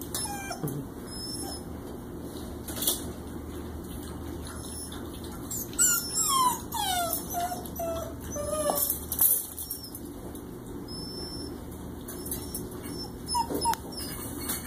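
Puppies whimpering and whining, with a run of high, falling whines around the middle, and a few light knocks and clicks.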